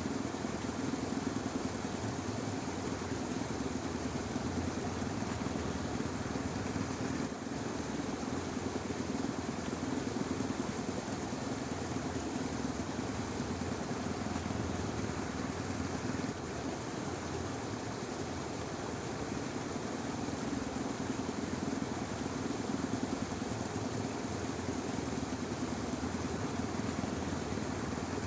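Dense, steady chorus of frogs in a flooded rice paddy, many calls merging into one continuous churring din.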